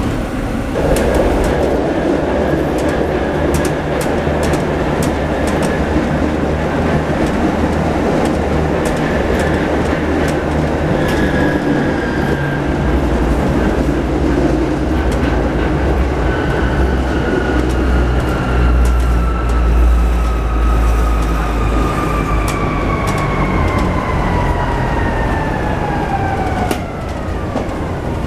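Inside a moving tram: a steady rumble of wheels on rail with scattered clicks. Over the last ten seconds or so a motor whine falls steadily in pitch as the tram slows.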